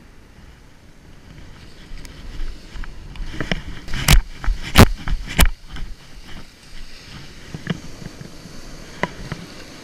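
Ocean surf washing in over the sand around the feet, with a low wind rumble on the microphone. About four seconds in, three loud sharp knocks come roughly two-thirds of a second apart, with a few fainter ones later.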